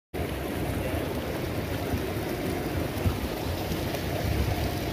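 Steady hiss of open water with a low, uneven rumble of wind on the microphone, and a brief thump about three seconds in.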